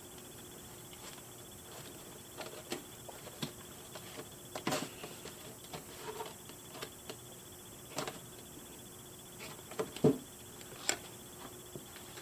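Scattered light clicks and taps of a cardboard doll box and its plastic packaging being handled and worked open, with a couple of sharper knocks about ten seconds in.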